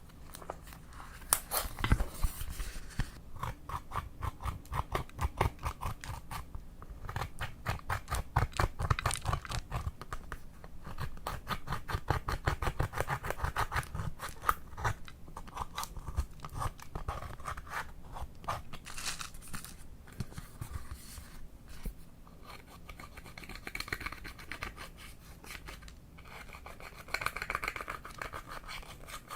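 Purple slime being squeezed and pressed by hand, giving rapid runs of small clicks and pops with short pauses between.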